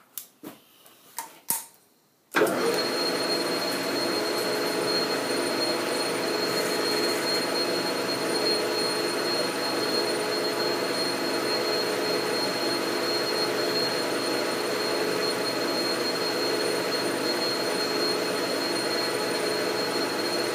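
A few light clicks, then a metal lathe starts about two seconds in and runs steadily, the chuck spinning with a constant high whine over the drive noise.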